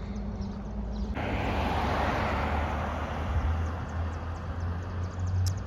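Vehicle traffic: a steady rush that starts abruptly about a second in, over a low hum.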